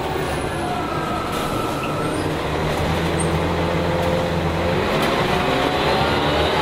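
Volvo B10L bus's rear-mounted Volvo DH10A 9.6-litre six-cylinder turbo diesel, heard from inside the cabin, pulling steadily under way. From about five seconds in its pitch rises as the bus accelerates.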